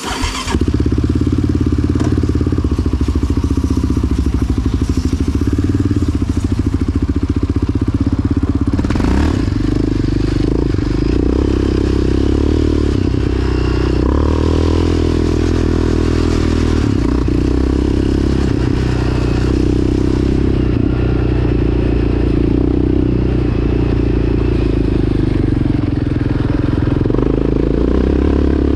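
Yamaha Raptor 700 quad's single-cylinder four-stroke engine running loud under throttle as the quad pulls away and rides on, its pitch rising and falling with the throttle while the clutch is tested for slipping.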